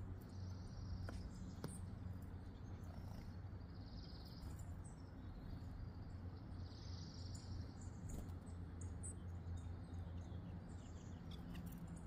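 Faint outdoor birdsong around bird feeders: small songbirds give brief high chirps and ticks, with short buzzy notes every couple of seconds, over a steady low hum.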